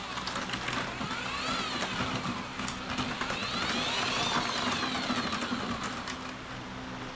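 A motor speeds up and slows down about three times, its pitch rising and falling each time, over a steady low hum, with a few clicks.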